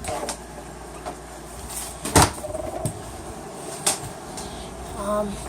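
A few scattered knocks and clicks from handling and moving about, the loudest about two seconds in.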